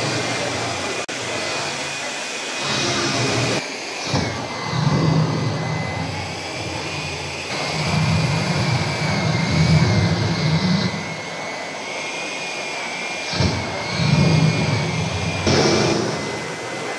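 Several handheld electric hair dryers running at once, blowing onto cloth: a steady rushing of air with a thin motor whine that wavers slightly in pitch. The rush swells in level a few times.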